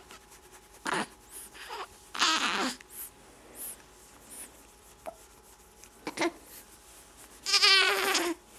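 Young baby vocalizing in short coos and squeals; the two longest, about two seconds in and near the end, waver in pitch.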